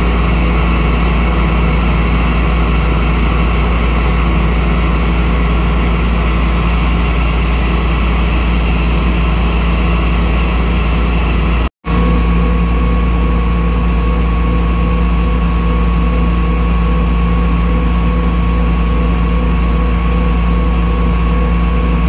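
Case IH Axial-Flow 7120 combine harvester running steadily with its engine idling. A brief gap comes about twelve seconds in; after it the machine runs on with a thin steady whine on top.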